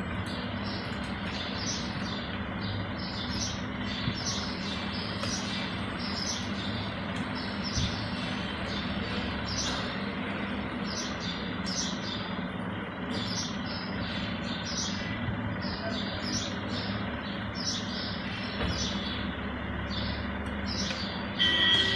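A bird chirping over and over, short calls about one to two a second, over a steady low hum. Near the end a louder steady sound with two tones starts.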